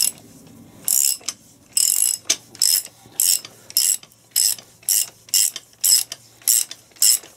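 Socket ratchet clicking in short repeated bursts, about two strokes a second, starting about a second in, as it winds the forcing screw of a gear puller drawing a part off the R380 gearbox shaft.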